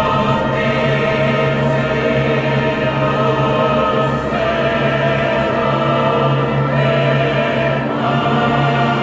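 Mixed choir singing long sustained chords, moving to a new chord about four seconds in and again near the end.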